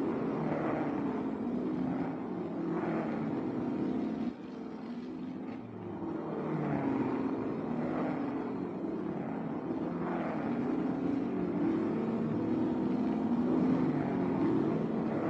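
Racing car engines running hard, revving up and easing off again and again, as cars accelerate out of corners and shift gears.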